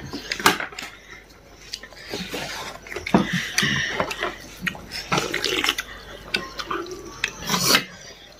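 Wet eating sounds: chewing and slurping of food, broken by several sharp clicks.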